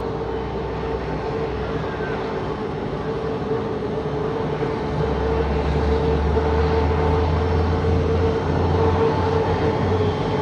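F-15 Eagle fighter jets starting up on the ramp: a steady high whine over a low rumble, the rumble getting louder about five seconds in.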